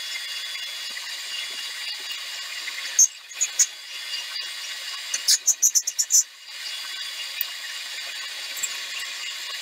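Harbor Freight mini lathe running with a steady whine and hiss as the cutting tool takes the part down to size. A little after three seconds the running sound drops away for about three seconds, during which a quick run of sharp clicks is heard, then the steady running sound returns.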